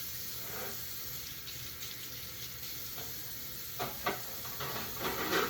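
Tap water running steadily into a kitchen sink, with a few light knocks of things being handled in the sink about four seconds in.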